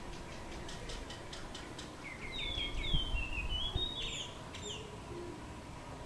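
Common myna calling: a quick run of dry clicks, then a string of short down-slurred whistled notes, with a few higher notes about four seconds in.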